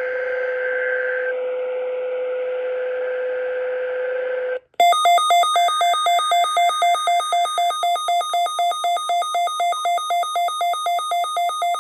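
Weather radio sounding a steady tone over a hiss, which cuts off sharply about four and a half seconds in. An electronic alert alarm then starts beeping rapidly and loudly, about five beeps a second, flipping between pitches. This is the receiver's warning alarm set off by the NOAA Weather Radio Required Weekly Test signal.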